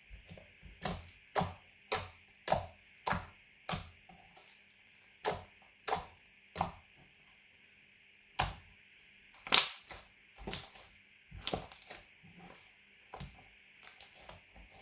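Glitter slime being squeezed and poked by hand, letting off a string of sharp popping clicks as trapped air bursts, about two a second at first, then more spaced out and irregular.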